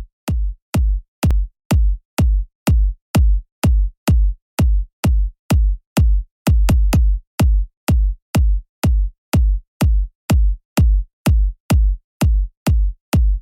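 Background electronic music: a bare drum-machine kick drum beating steadily, about two beats a second, with nothing else playing.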